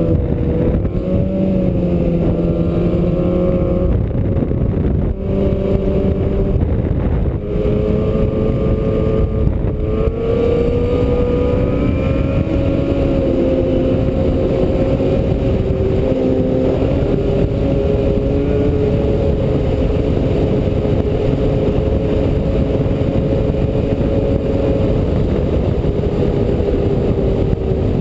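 Yamaha snowmobile engine running at a steady cruising pace, its pitch wavering a little in the first ten seconds and then holding steady, over a constant rushing noise.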